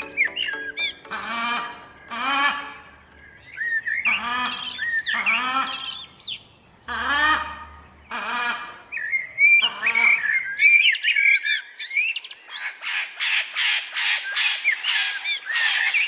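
Parrots calling: a string of harsh squawks that bend in pitch, then a few whistled chirps, and in the last few seconds a fast run of raspy chatter.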